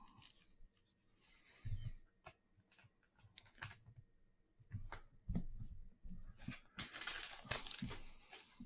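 Trading cards and their pack being handled: scattered light clicks and taps, then a stretch of rustling about seven seconds in.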